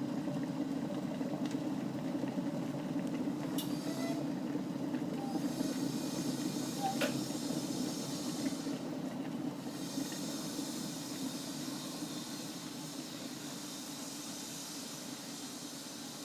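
Water at a rolling boil in a pot: a steady low bubbling rumble with hiss, gradually getting quieter, and a single light click about seven seconds in.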